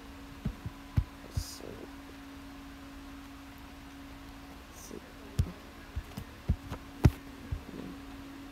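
Fingers tapping and knocking on a tablet's touchscreen: a few sharp taps in the first second and a half, then a quicker cluster between about five and seven and a half seconds in, over a steady low hum.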